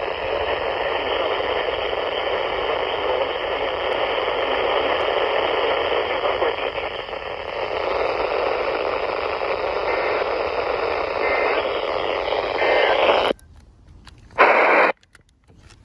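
Weather radio receiver hissing with steady static for about thirteen seconds, then cutting off suddenly, with one short burst of hiss about a second later.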